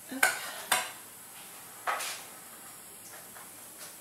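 A spoon knocking against a stainless steel saucepan of thick béchamel sauce: three sharp clinks, the last near the middle.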